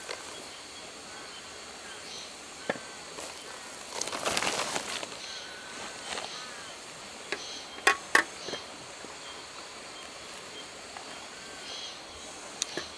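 Food-prep handling sounds: green peppers being set down on a wooden cutting board on an aluminium camp table, with soft rustling around four seconds in and a few sharp clicks, the loudest a pair about eight seconds in. Faint bird chirps over a steady background hiss.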